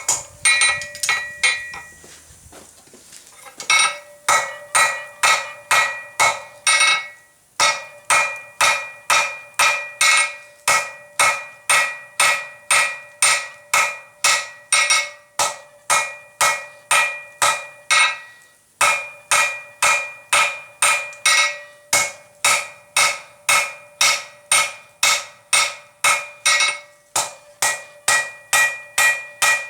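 Blacksmith's hand hammer striking a hot steel flat-bar blank on the anvil in a steady rhythm of about two blows a second, each blow ringing. The blows come in runs with a few brief pauses.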